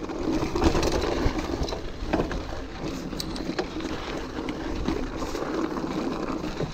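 Orbea Alma hardtail mountain bike rolling over a rocky trail: a steady rumble of tyres on rock and dirt, with scattered knocks and rattles from the bike jolting over stones.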